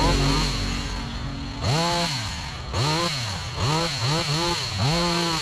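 Small petrol hedge trimmer engine revved up and let back to idle again and again in short blips, about once a second.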